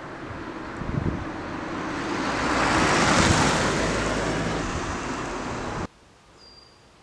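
A small hatchback car driving past close by, its engine and tyre noise swelling to a peak about three seconds in and then easing off. The sound cuts off abruptly near the end to a quiet outdoor background with a brief high chirp.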